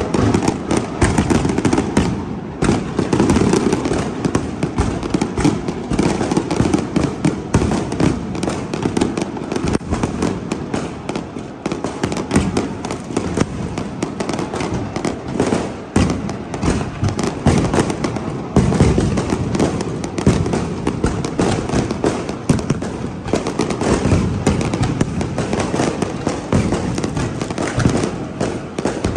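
Fireworks display: a continuous barrage of bangs and crackling from many shells bursting one after another, with no let-up.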